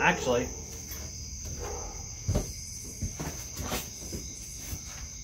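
Crickets chirring steadily at a high pitch, with a few light knocks.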